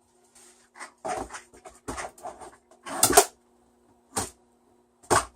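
Irregular knocks and rattles of kitchen containers being handled on a counter, a quick run of them with the loudest about three seconds in, over a faint steady appliance hum.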